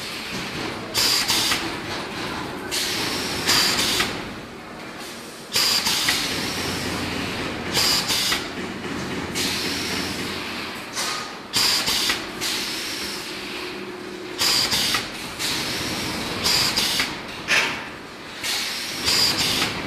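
Steel wire mesh panels rattling and clanking as they are loaded into and bent on a hand-operated wire mesh bending machine, in sharp noisy bursts every second or two over a steady factory hum.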